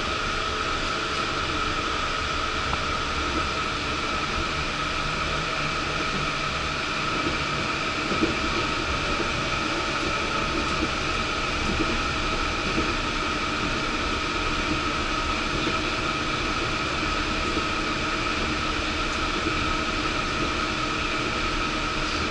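Cabin noise of a Yurikamome rubber-tyred automated guideway train running along its elevated track: a steady rush of running noise with a constant high whine, and a single light knock about eight seconds in.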